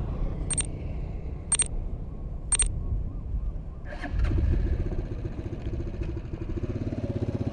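Three short high electronic beeps about a second apart, then a small motorcycle engine idling with a low, steady rumble from about four seconds in.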